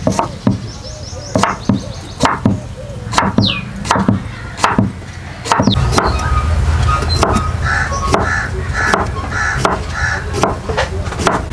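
A steel cleaver chops a long snake cucumber into round slices on a wooden board, about two sharp chops a second for the first five seconds or so. Birds call in the background, and a steadier low hum with short repeated calls takes over in the second half.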